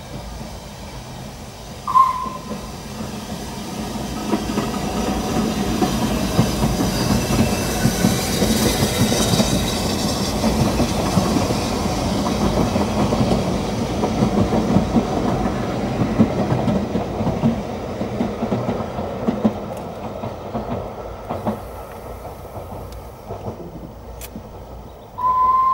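Ffestiniog Railway narrow-gauge steam train, hauled by the 1867 locomotive Welsh Pony, running past over the level crossing. It grows louder to a peak about a third of the way in, then fades as the last coaches go by. A short high whistle sounds about two seconds in and again at the very end.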